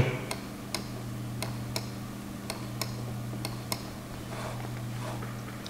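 Computer mouse clicking lightly about a dozen times at uneven intervals, over a steady low hum.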